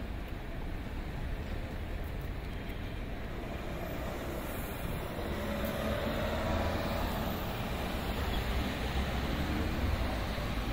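City road traffic: a steady rumble of cars and engines going by, growing a little louder past the middle as a vehicle passes with a gliding engine or tyre tone.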